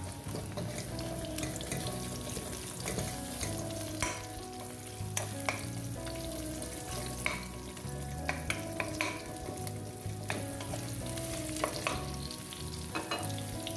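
Sliced onion sizzling in hot oil in a frying pan while a spatula stirs it, with a steady hiss and many sharp clicks and scrapes of the spatula against the pan.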